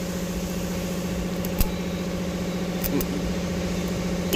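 A steady idling engine hum, even throughout, with one sharp click about a second and a half in.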